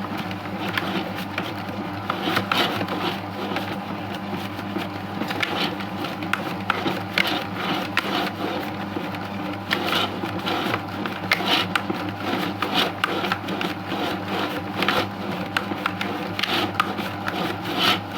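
A simple cake-dough mixing machine running: a steady electric-motor hum with frequent irregular clicks and knocks over it.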